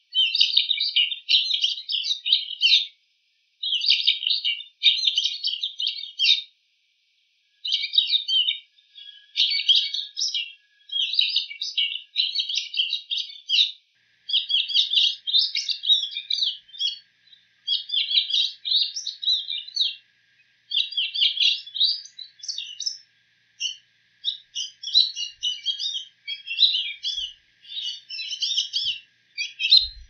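Bull-headed shrike singing its mimicking song, copying other birds' calls. It is a high-pitched, rapid chatter in phrases of a second or two, with short pauses between them.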